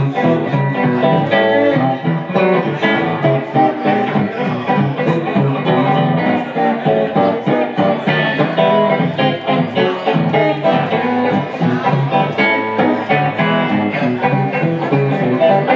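Solid-body electric guitar playing a blues instrumental passage: a busy run of short picked notes over a steady groove, with no singing.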